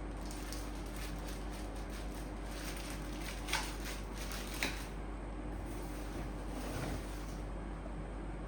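Two brief handling noises, short clicks or rustles about a second apart, over a steady low hum and hiss.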